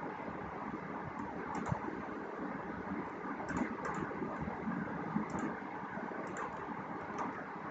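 A handful of scattered clicks from computer keyboard keys and a mouse, made while placing cursors and pasting text, over a steady background hiss.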